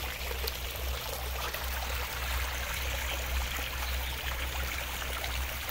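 Garden pond fountain spilling water over its rim into a koi pond, a steady splashing trickle, with a low steady hum underneath.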